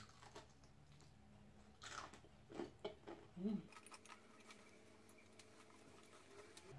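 Faint biting and chewing of a crunchy breadcrumb-coated baked onion ring, with a few crisp crunches between about two and three and a half seconds in.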